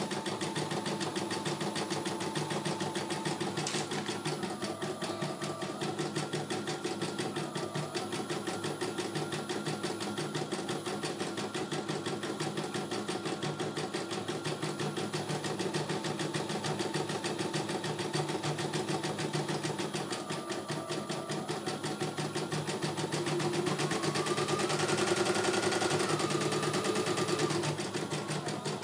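CNY E900 computerised embroidery machine stitching a design: a fast, steady run of needle strokes, with a motor whine that steps up and down in pitch. It runs a little louder for a few seconds near the end.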